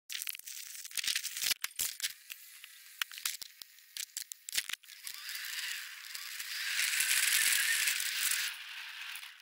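Gear being packed up: a run of rattling clicks and knocks as cables and equipment are handled, then from about five seconds in some three seconds of scratchy rustling handling noise on the covered camera.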